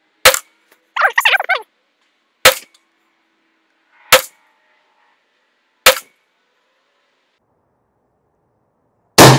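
Five gunshots from a PSA Jakl 300 Blackout pistol firing 110-grain Hornady V-Max rounds. The first four come about two seconds apart, and after a longer pause the last comes near the end, echoing as it fades.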